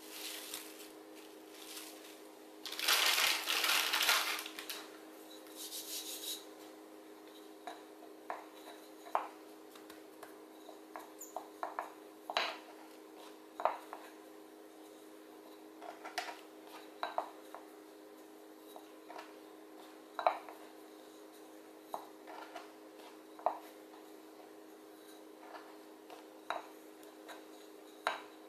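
Plastic cling film crinkling as it is pulled out and laid over dough balls, about three seconds in. Then a small wooden rolling pin rolls out dough on a countertop, with scattered light knocks and clicks, over a steady low hum.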